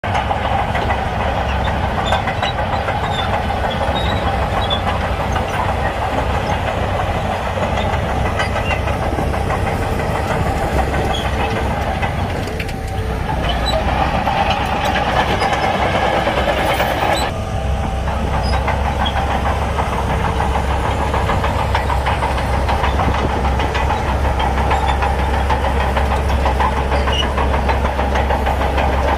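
Shantui bulldozer's diesel engine running steadily, with a short dip about 13 seconds in and a change in the engine note about 17 seconds in.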